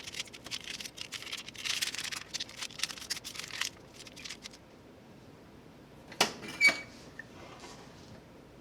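Stainless steel heat-treat foil crinkling and crackling as it is folded around a small steel test piece, for about the first three and a half seconds. Later come two sharp clicks half a second apart, the second with a brief ring.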